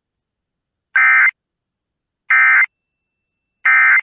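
Emergency Alert System end-of-message data bursts: three short electronic bursts, each under half a second, about one and a third seconds apart. They carry the digital end-of-message code that closes an EAS test.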